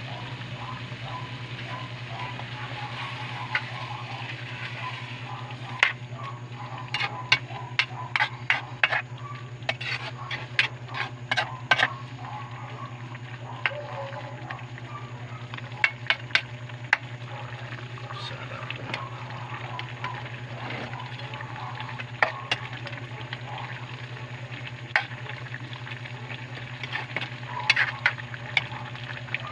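Pork and liver adobo bubbling and sizzling in a metal pan, with a spoon stirring and knocking against the pan in clusters of sharp clicks. A steady low hum runs underneath.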